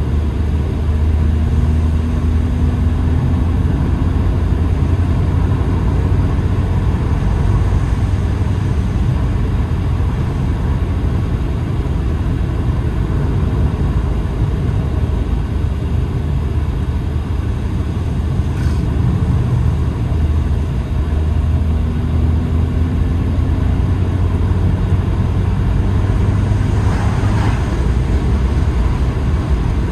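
Car engine and tyre noise heard from inside the cabin while driving: a steady low rumble, with the engine pitch rising gently twice, near the start and about two-thirds of the way through. A brief click a little past halfway.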